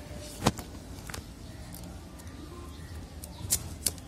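Kitchen knife scraping the scales off a large snapper on a wooden cutting board: sharp short clicks and scrapes, once about half a second in, again at about a second, then several in quick succession near the end.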